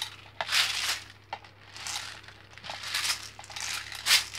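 Plastic airsoft BBs rattling into a plastic spring airsoft drum magazine from a squeezed plastic BB loader bottle, in a series of short rattling, crinkling bursts.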